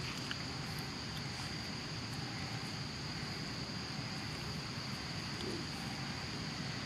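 Steady, high-pitched insect drone over a low, even background hiss.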